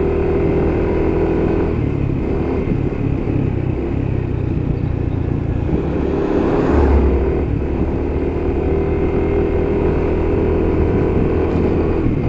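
A vehicle's engine running steadily with road and wind noise, heard from aboard while driving along a road, with a brief low bump about seven seconds in.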